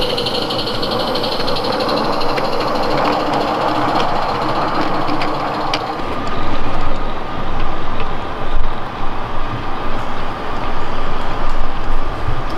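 Live-steam garden-scale locomotive running along the track with its train, wheels running over the rails. About six seconds in, the sound changes to a second steam train hauling coaches further off, with an uneven low rumble.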